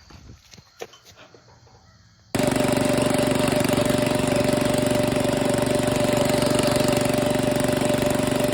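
A few faint clicks, then a lawn mower engine cuts in abruptly about two seconds in and runs steadily at a constant high speed, with a strong steady hum.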